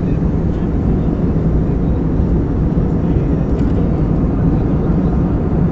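Steady cabin noise of a jet airliner in cruise flight: a deep, even rumble that holds unchanged throughout.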